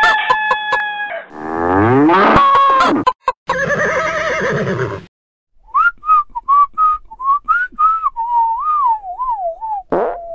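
Farm animal calls, including a cow mooing, followed by a whistled tune of short notes that wavers up and down near the end.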